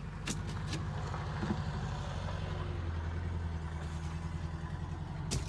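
An engine running steadily at idle, a low fluttering hum, with a few sharp clicks on top, one shortly after the start and one near the end.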